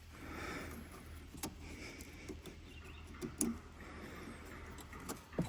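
Faint clicks and light rustling of hands working on ATV wiring and a key switch, over a steady low hum.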